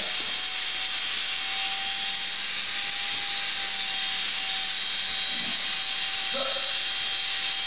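Small antweight combat robot's spinning weapon shell running at speed: a steady high whir with a steady whine held through.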